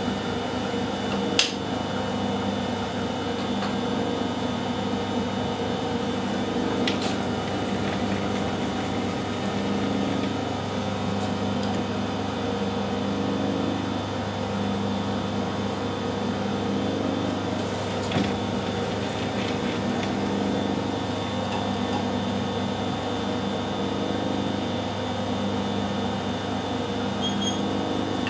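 Steady hum of a Harrison metalworking lathe's electric motor and drive running, with a few light metallic clicks from tools being handled.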